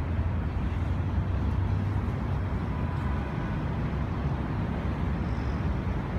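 Steady low rumble of motor traffic, with no single sound standing out.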